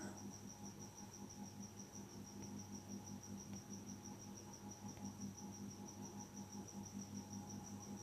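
Faint background of a cricket chirping in rapid, even pulses, over a low steady electrical hum.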